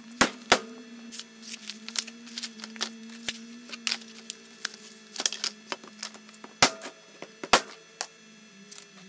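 Sharp knocks and clatter as a thick aluminum bar is unpacked from its cardboard edge protectors on a wooden workbench, over a steady hum.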